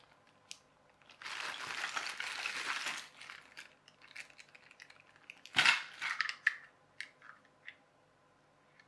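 Clear plastic zip-lock bag crinkling for about two seconds as a hand rummages through the small plastic toy parts inside. This is followed a few seconds later by a sharp knock and a few light clicks of hard plastic parts being handled.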